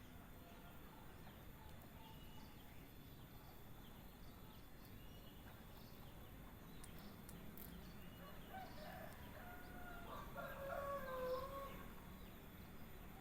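Faint steady background with a few thin, high bird chirps. About eight seconds in comes one drawn-out crow of a distant rooster, lasting three to four seconds, the loudest sound here.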